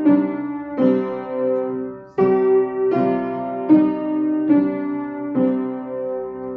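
Piano playing a slow stepwise melody, single struck notes with a sustained ring, about seven notes spaced under a second apart: the guide for a do-re-mi-fa-sol scale exercise for singers to echo.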